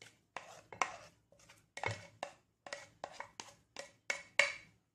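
A plastic spoon scraping fried potato slices and onion off a plate into a glass bowl of beaten eggs: a dozen or so short, irregular scrapes and knocks.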